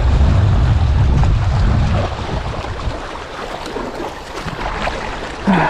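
Wind buffeting the microphone with a heavy low rumble for the first two seconds, over the steady wash of sea waves on a rocky shore; a brief shouted voice near the end.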